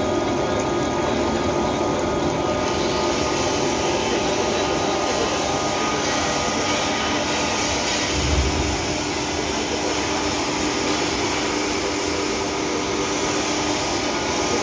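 Electric rod-rolling machine running steadily as a steel rod is fed between its rollers, a constant motor-and-roller hum. A brief low thud a little past halfway.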